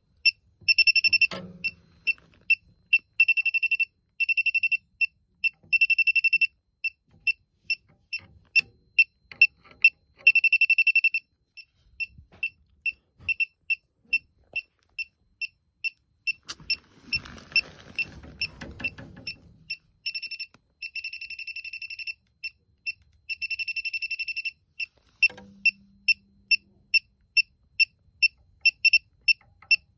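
Elitech WJL-6000 refrigerant leak detector beeping rapidly with a high-pitched tone, about three beeps a second, several times running together into longer steady tones: its alarm responding to refrigerant at the probe. About two seconds of rushing noise come a little past the middle.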